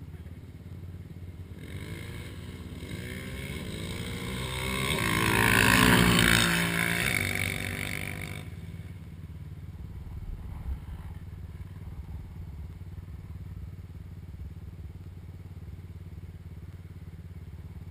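ATV engine at full throttle racing past, growing louder to a peak about six seconds in and then fading away within a few seconds, its pitch gliding as it goes by. A steady low hum runs underneath.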